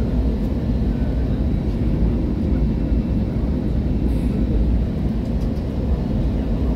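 Steady low rumble of cabin noise inside an Airbus A320neo on final approach: engine and airflow noise, with a faint steady hum.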